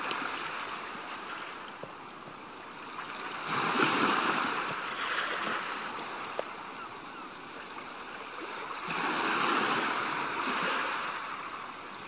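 Ocean waves breaking and washing up the shore in a steady hiss, with two larger waves surging in, about four seconds in and again about nine seconds in.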